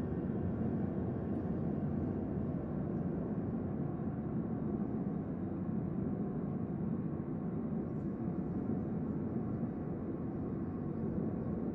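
Steady, deep sci-fi ambient drone: a low rumbling hum with a soft hiss above it, unchanging.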